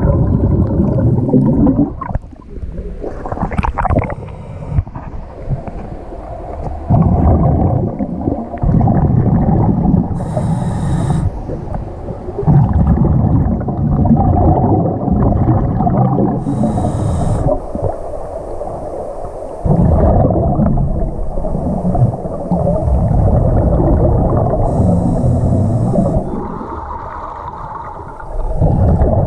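Scuba diver breathing through a regulator underwater: a short hissing inhale, then a long bubbling exhale, repeating about every seven seconds.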